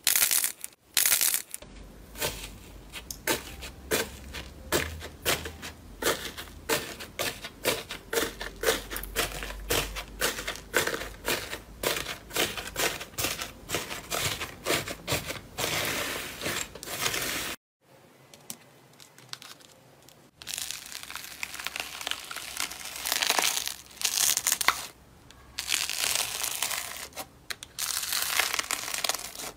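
Slime being squeezed and pressed by hand: a long run of rapid crunchy crackles as a flaky, crusted blue slime is pressed in a bowl. After a quieter stretch of a few seconds, the crackling starts again as a yellow slime is pressed flat.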